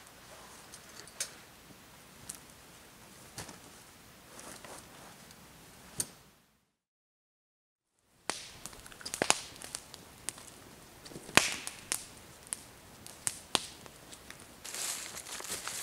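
Footsteps on a forest floor, with twigs and debris crunching and snapping in sharp cracks, sparse at first and busier later. The sound drops out completely for about a second and a half in the middle.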